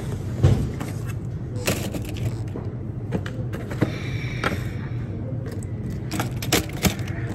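Belongings being handled and packed up: a scattering of light clicks and knocks from objects being picked up and set down, over a steady low hum.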